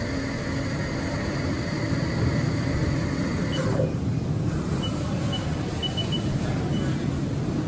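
Haas TM-1P CNC mill spindle running steadily at about 1,000 RPM: a steady hum and rumble with a thin whine over it. The higher whine fades about halfway through while the low hum carries on.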